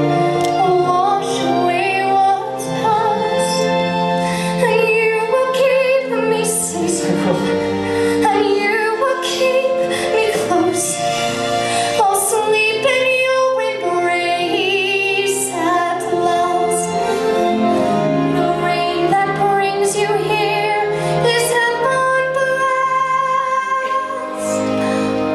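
A woman singing a musical-theatre ballad with vibrato over sustained instrumental accompaniment, from a live stage performance.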